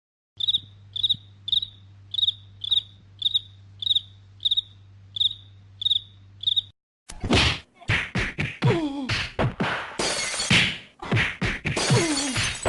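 Cricket-chirping sound effect: short high chirps about twice a second over a low hum. A little under seven seconds in it cuts off, and a louder, chaotic run of crashes and hits follows, mixed with falling-pitch wails.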